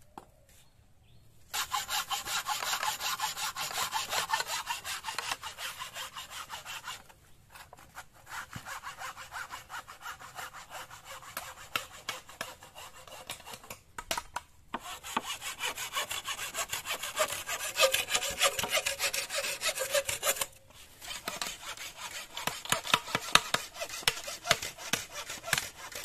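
Hand saw cutting through green bamboo with fast back-and-forth strokes, in four bouts broken by short pauses.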